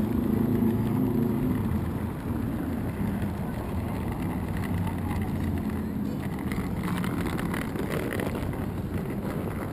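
City street traffic: motor vehicle engines running steadily in the background, a little louder in the first couple of seconds, over general urban background noise.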